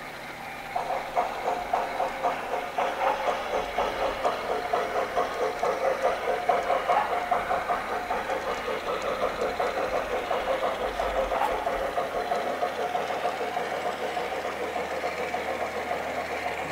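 Garden-railway model of an HSB 2-10-2T steam tank locomotive chuffing as it pulls its train away, the beats starting about a second in and coming steadily faster.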